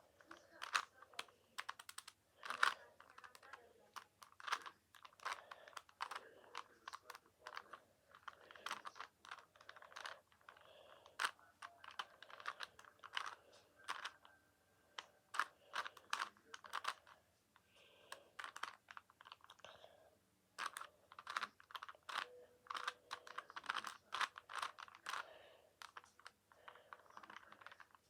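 3x3 Rubik's cube being turned by hand: quick runs of irregular plastic clicks as the layers rotate, with short pauses between runs.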